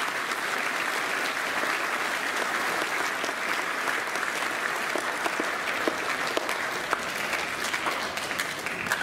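An audience in a large hall applauding steadily, fading near the end.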